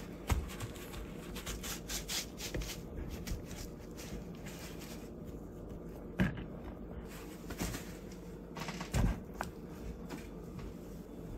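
Paper towel rubbed and dabbed over the salted pork belly skin, rustling as it blots up moisture, followed by soft handling noises and a couple of dull thumps as the raw slab is moved and laid on a cutting board, the heavier one about nine seconds in.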